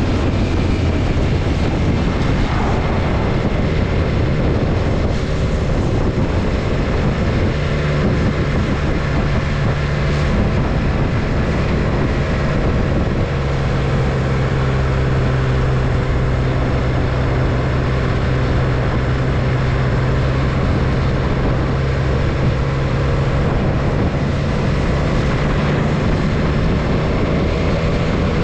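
Adventure motorcycle running at a steady cruising speed, its engine drone holding a low, even pitch under loud rushing wind and road noise. The pitch drops a little about halfway through and rises again a few seconds before the end.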